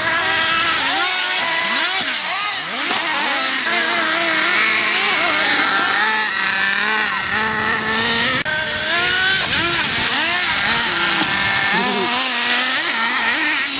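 Several nitro RC car engines, small two-stroke glow engines, revving hard and overlapping, their high-pitched whines rising and falling.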